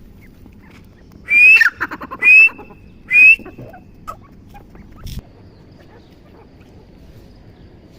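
Teetar (partridge) calling: three loud, shrill, rising notes about a second apart, with softer clicks between them. A single short knock follows a couple of seconds later.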